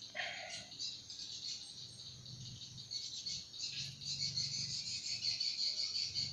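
Insects chirring steadily in a high, finely pulsing drone, with a brief faint rustle just after the start.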